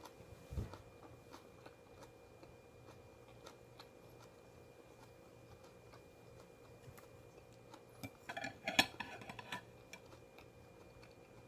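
Quiet eating sounds: scattered small clicks and taps of chopsticks and food containers, a soft thump about half a second in, and a louder clatter of several quick clicks about eight seconds in.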